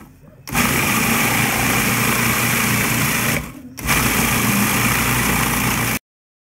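Food processor running, its blade mincing venison with lotus root and onion: the motor starts about half a second in, stops for a moment just past three seconds, runs again, then cuts off suddenly near the end.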